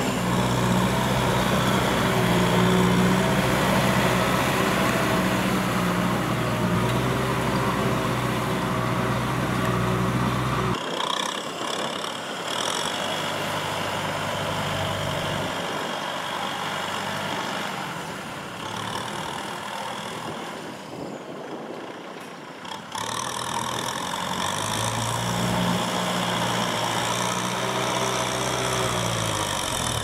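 Kubota M6040SU tractor's four-cylinder diesel engine running under load as it pushes mud with its front blade. For a stretch in the middle it sounds fainter and thinner, then comes back with its pitch rising and falling.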